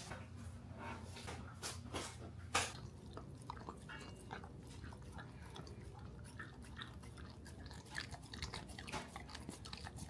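A Cardigan Welsh corgi chewing something crunchy: an irregular run of small crunches and clicks.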